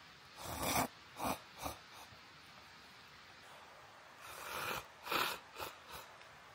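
A person slurping instant noodles: two rounds, each a longer slurp that swells up, followed by two or three short quick slurps.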